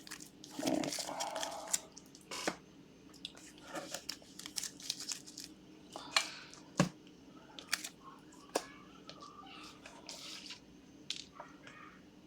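Trading cards being handled and sorted by hand, with scattered light clicks and plastic rustling, a longer rustle about a second in.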